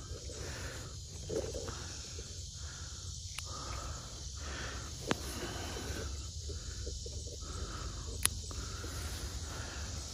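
Two sharp clicks of pruning snips cutting dying tomato stems, about five and eight seconds in, with soft rustling of the tomato leaves being handled. Under it runs a steady high hiss of insects.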